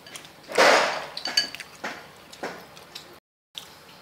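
Chopsticks and a metal spoon clinking against ceramic bowls of noodle soup: several sharp, ringing clinks, after a short, loud noisy burst about half a second in. The sound cuts out completely for a moment near the end.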